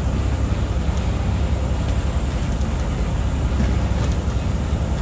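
Steady low rumble with an even hiss above it, aboard a fishing boat at sea, typical of the boat's engine and wind on the microphone.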